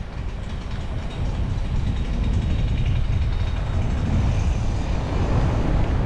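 A vehicle driving along a narrow forest road: a steady low rumble of road and wind noise, rising slightly about a second in.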